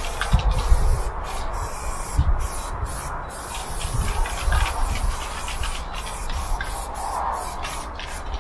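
Aerosol spray paint can hissing in short and longer sprays against a freight wagon's side, broken by brief pauses, over a low uneven rumble.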